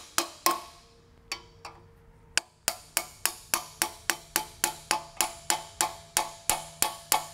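Light, quick taps of a ball-peen hammer on the steel of a Dana 44 differential, each with a short metallic ring. A few taps come at the start, then a pause, then an even run of about four taps a second from about a third of the way in.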